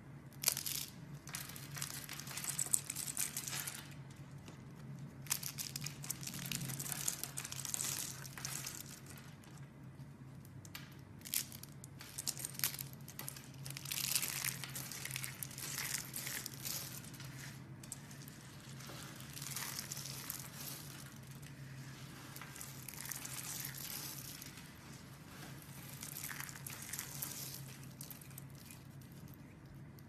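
Thin, dry slices of soap crushed and crumbled by hand into small flakes: crisp crackling crunches that come and go in bursts.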